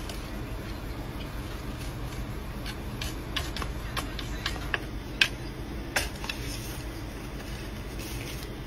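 Scattered light clicks and taps, about a dozen at uneven spacing, the sharpest about five seconds in, over a steady low hum.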